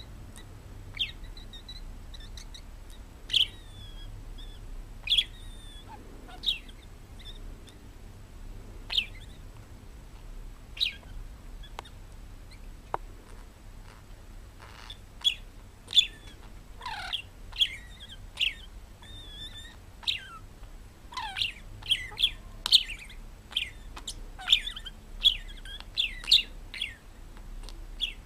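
Parrot giving short, sharp chirps, a second or two apart at first and coming thick and fast in the second half, some of them sliding down in pitch.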